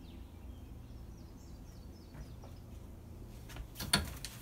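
Faint bird chirps, a few short falling notes, over a low steady hum, with a few sharp clicks and one louder knock near the end.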